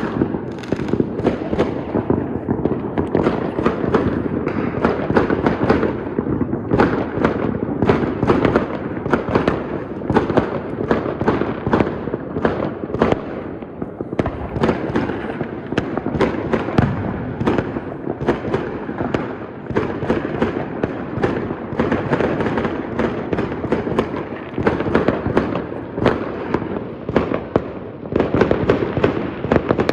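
Fireworks going off continuously: a dense, unbroken run of cracks and bangs from many shells bursting at once, with a constant rumbling background.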